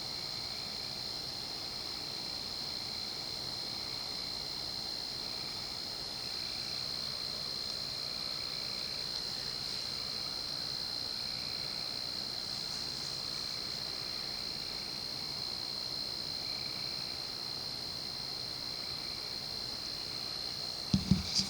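Steady, high-pitched chorus of night insects, with a softer call repeating every second or two underneath. Near the end a couple of sharp clicks cut in.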